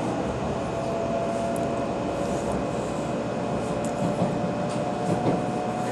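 Cabin noise of an 800-series Shinkansen running: a steady rumble with a faint motor whine that slowly rises in pitch as the train gathers speed.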